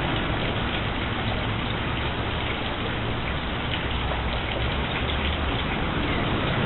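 Steady hiss of running water splashing onto concrete, with a low rumble underneath.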